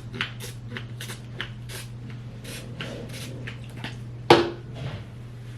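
Coconut oil hair spray spritzed onto hair in quick short hisses, about three a second, then a single louder sharp knock about four seconds in.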